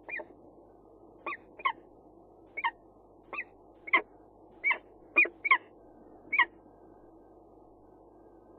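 Peregrine falcon giving a series of about ten short, sharp calls, irregularly spaced, which stop about two thirds of the way through.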